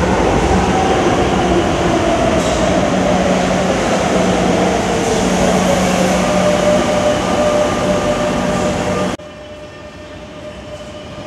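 Madrid Metro train running along a station platform: electric traction motors whining with a pitch that glides down and up, over a steady hum and rumble. About nine seconds in, the sound cuts suddenly to a much quieter rumble.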